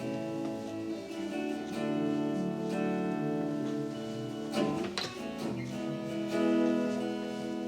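Instrumental worship music: acoustic guitar strumming held chords, with a clear strum about five seconds in.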